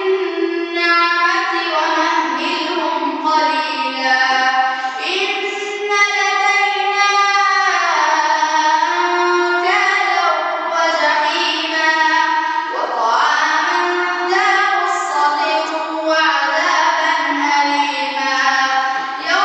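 A boy's voice reciting in a melodic chant, in long phrases of held notes that slide and turn between pitches, with short breaths between phrases.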